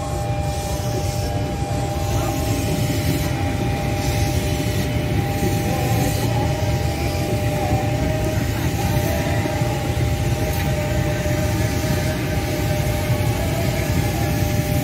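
Former Tokyo Metro 6000-series electric commuter train, set TM 6018, running past: a steady rumble of wheels on the rails with two steady high tones over it.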